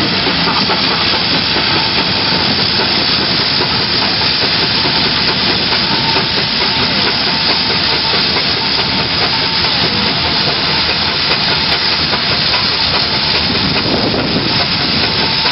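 Steam traction engines working hard under a heavy pull: a loud, steady hiss of steam with the engines running.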